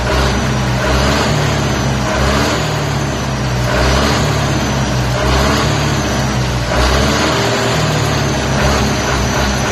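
International tractor engine being revved again and again, the engine speed rising and dropping back about every one and a half seconds.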